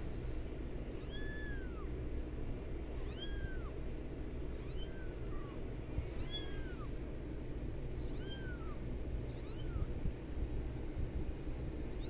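Kitten mewing over and over: high-pitched calls that rise and then fall, one every second or two, over a steady low background noise.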